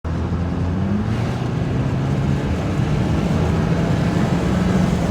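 BMW 328i's N20 turbocharged four-cylinder engine pulling the car on a road test, with a steady rush of road noise. Its note rises a little in the first second and then holds steady. The engine has freshly replaced ignition coils, fitted to cure a stutter and misfire under hard acceleration.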